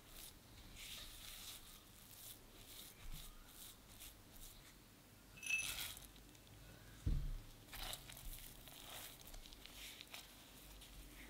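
Soft scraping and rustling of a silicone spatula pressing and folding crumbly chocolate shortbread dough in a glass bowl, then a gloved hand working the dough. About halfway through, a short ringing clink as chopped almonds are tipped in from a cup, followed a moment later by a dull thump.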